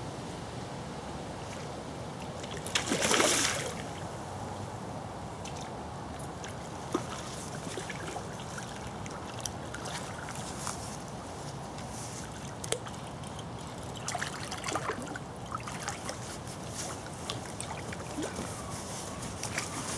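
A hooked barbel splashing at the surface of a flooded river, over the steady rush of the water. One loud splash comes about three seconds in, and a run of smaller splashes and sloshes follows near the end.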